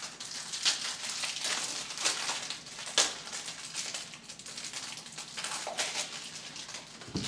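Clear plastic trading-card packaging crinkling and rustling as football cards are handled and pulled from a stack, with a few sharp snaps and clicks.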